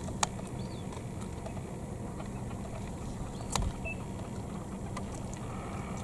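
Steady low rumble of an idling car engine heard from inside the car, with two sharp clicks, one just after the start and one a little past halfway.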